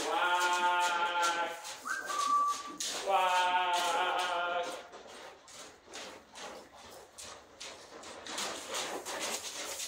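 Horse neighing loudly twice, each call long and quavering. A short high whistle falls in pitch between the two calls. In the second half come regular hoofbeats in deep sand, about three a second, as the horse goes round on the lunge line.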